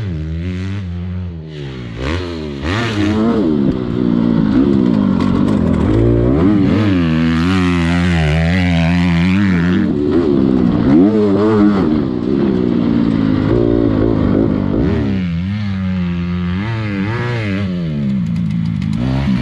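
Dirt bike engine being ridden hard around a motocross track, its pitch repeatedly climbing and dropping as the throttle is opened and closed and the gears change. It gets louder about four seconds in.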